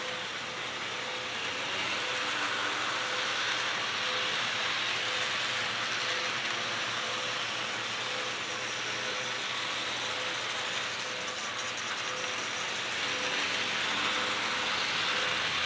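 HO scale model trains running on DC-powered track: a steady mechanical whirring and clicking of locomotive motors and metal wheels on the rails, with a faint even pulsing note. It grows a little louder about two seconds in and again near the end as the trains pass close.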